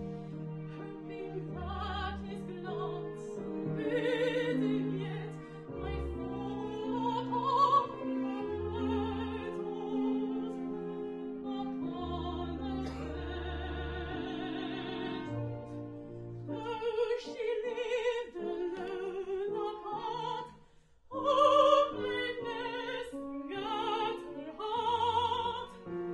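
A woman singing a comic-opera song in full operatic voice with vibrato, over instrumental accompaniment. About twenty seconds in there is a brief pause, then the voice comes back with a loud phrase.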